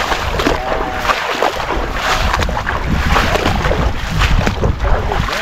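Wind buffeting the microphone, with irregular splashing and sloshing of shallow water as someone wades through weedy lagoon shallows.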